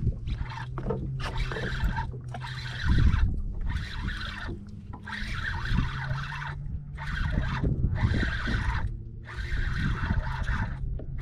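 Water sloshing and trickling around a small boat in uneven stretches, over a steady low mechanical hum.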